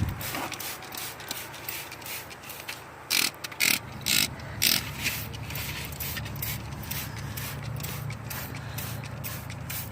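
Hand trigger spray bottle squirting degreaser: four short hissing squirts about half a second apart, a few seconds in, over a low steady hum.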